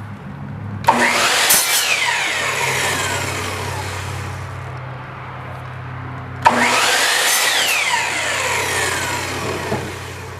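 Electric miter saw making two cuts through rough-cut lumber, about a second in and again past the middle. Each starts suddenly and its whine falls away over a few seconds as the blade winds down. A steady low hum runs underneath.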